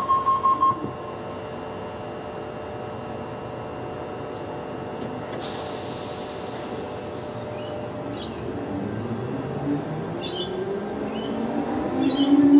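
Diesel locomotives hauling a freight train approach with a steady rumble that grows louder. Over the last few seconds a rising whine builds. A pulsing beep tone cuts off about a second in.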